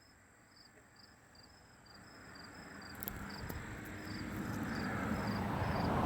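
Insects chirping steadily, a short high pulse repeating two or three times a second over a thin continuous high buzz. A rushing, rumbling noise swells from about two seconds in and is loudest near the end.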